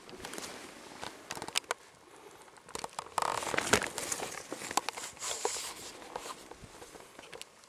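Hiking footsteps crunching and rustling through dry leaf litter, twigs and low plants, a run of sharp crackles with the densest rustle about three to four and a half seconds in.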